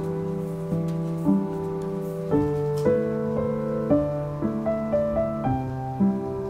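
Background piano music: a slow, gentle melody of single notes over held chords.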